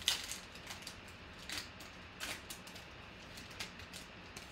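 Foil wrapper of a trading-card pack crinkling as it is torn open and the cards slid out: a sharp crackle right at the start, then scattered softer crackles and rustling.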